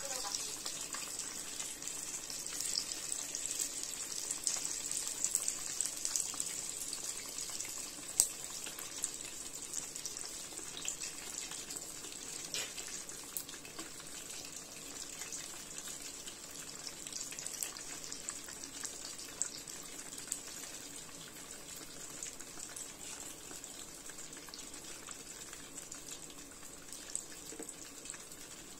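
Buns frying in hot oil in an electric pot: a steady sizzling hiss with scattered crackles, growing slowly quieter, with an occasional sharper click.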